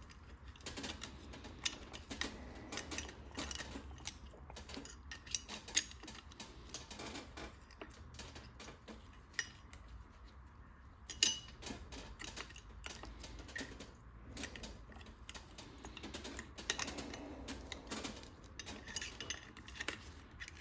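Scattered light metallic clicks and clinks of hand tools against the clutch hub and its nut as the nut is worked loose, with one sharper knock about eleven seconds in.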